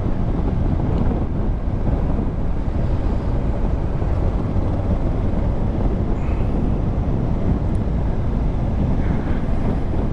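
Steady wind rush and road noise inside a motorcycle helmet while riding, with the 2019 Honda Africa Twin's parallel-twin engine running underneath as a low rumble.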